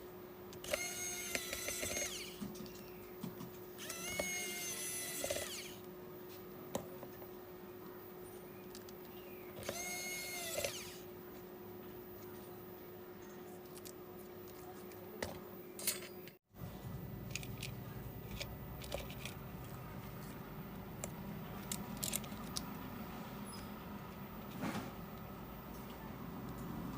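Small handheld power tool motor whining in three short runs, each rising and falling in pitch, over a steady low hum; about two-thirds of the way through the sound cuts, leaving only faint clicks and handling.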